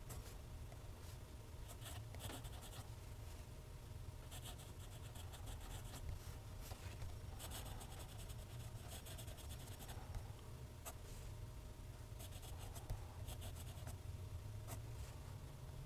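TWSBI ECO fountain pen's steel nib scratching faintly across smooth Clairefontaine paper in continuous cursive strokes, over a steady low hum.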